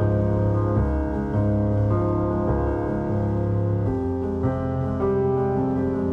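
Background piano music: slow, sustained chords changing about once a second.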